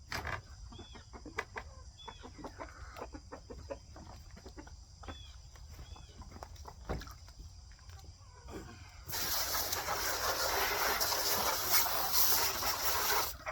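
Chickens clucking, with scattered small clicks among the calls. About nine seconds in, a loud steady rushing noise starts and covers them for about four seconds, then stops.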